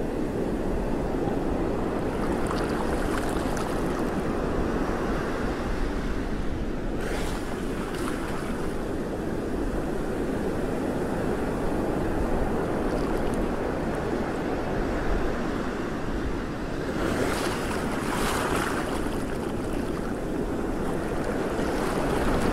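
Sea water washing and lapping, with wind buffeting the microphone. Surges of louder hissing wash come about a third of the way in and again around three quarters through.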